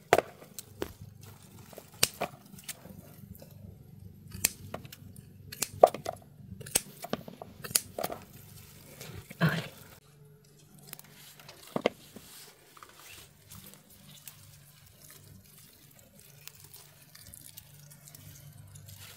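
Irregular snips, clicks and rustling as cherry tomato clusters are cut from the plants, with a faint low hum underneath. The sharpest clicks come in the first half and thin out after about ten seconds.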